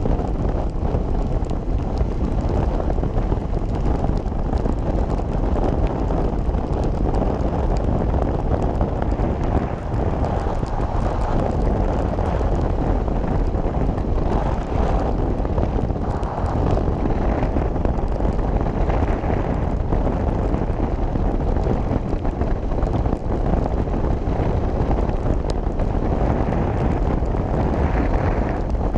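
Steady rush of wind on the microphone of a camera mounted on a moving motorcycle at road speed, with the bike's running noise buried in it.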